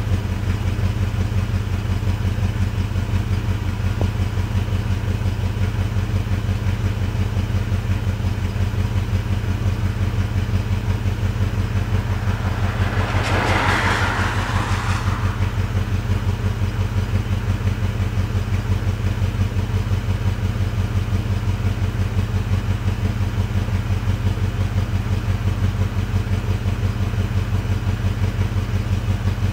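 1985 Ford Mustang GT's 5.0-litre V8 idling steadily through its stock exhaust, with an even low pulsing rumble, while warming up after a cold start. A brief hissing rush lasts about two seconds near the middle.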